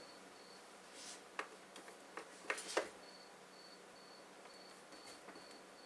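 A few light clicks and taps of small-parts soldering work on a circuit board, strongest in the first half. From about halfway a faint high-pitched chirp repeats about twice a second.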